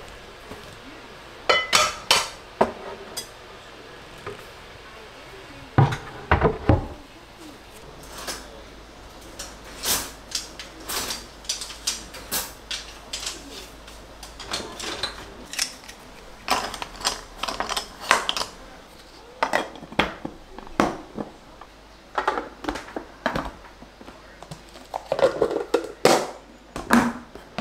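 Kitchenware being put away: pots, pans, utensils and storage containers clinking and knocking against each other and the counter in irregular clusters, with a heavier low thud about six seconds in.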